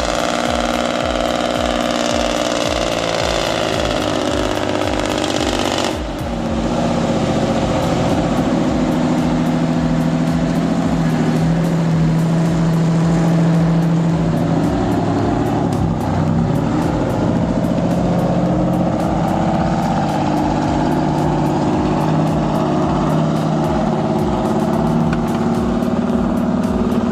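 Heavy diesel log truck engine running steadily, its firing pulses rapid and even. An abrupt cut about six seconds in switches to a different stretch of engine sound with a lower, steady pitch that shifts up and down a little.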